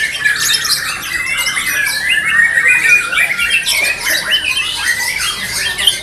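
Several caged white-rumped shamas singing at once: a dense, overlapping stream of fast chirps, trills and sliding whistles.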